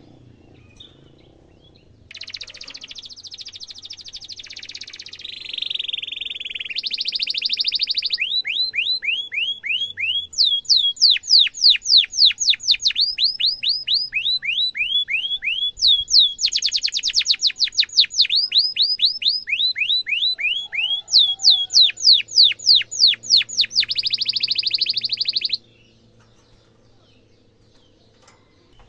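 Domestic canary singing a long song. It alternates fast buzzing trills and rolls with runs of quick down-slurred 'cuit cuit' notes at several per second. The song starts about two seconds in and stops abruptly near the end.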